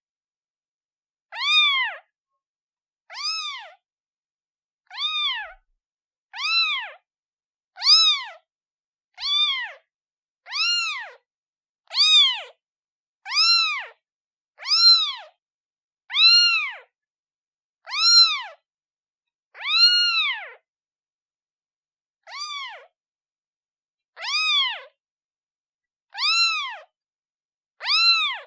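Newborn kitten meowing over and over, calling for its mother: about seventeen high-pitched meows, each rising and then falling in pitch, roughly one every one and a half seconds, with silence between.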